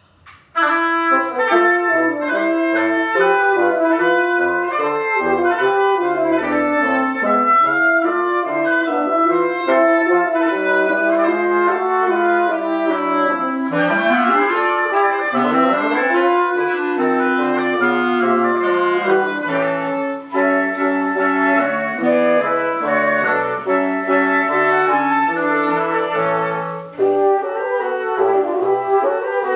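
Woodwind quintet of flute, oboe, clarinet, horn and bassoon playing, starting together about half a second in after a silence. The lively music moves in busy layered lines, with quick rising runs about halfway through.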